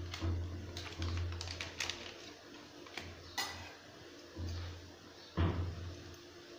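Water boiling around a block of instant noodles in an aluminium saucepan on a gas stove: scattered pops and clicks over a low rumble that comes and goes, with a sharper knock about five seconds in.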